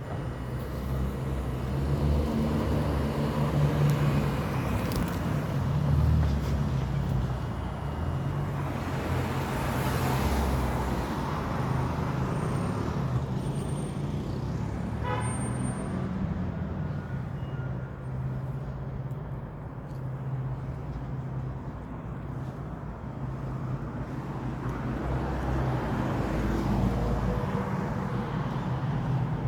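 Road traffic: a steady low engine rumble with vehicles passing now and then, each swelling and fading over a few seconds.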